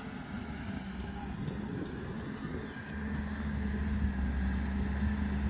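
Diesel engine of a Volvo wheeled excavator running steadily as it works, loading a dump truck, with the hum growing louder about three seconds in.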